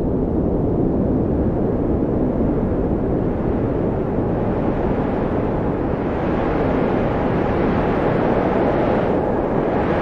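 Strong, steady blizzard wind: a dense, low rushing noise with a faint whistling howl above it that comes in about midway and holds.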